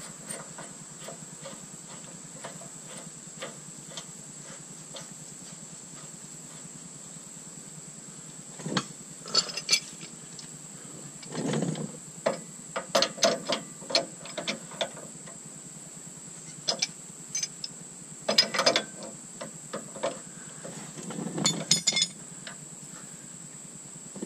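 Metal hand tools clinking and clanking against a truck's steering box while a steering brace is fitted. The sound comes in several short clusters of sharp clicks, some as quick runs.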